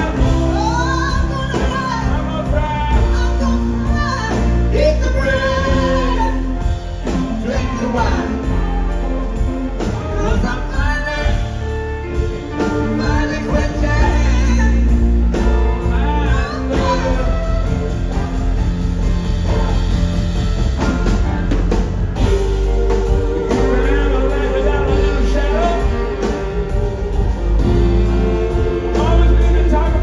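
Live rock band performing a song, with singing over a steady bass, drums and guitar.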